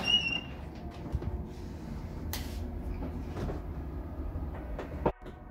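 Handheld camera handling noise and footsteps of someone walking through a house, with a few light knocks and a sharp click about five seconds in. Background music comes in right after the click.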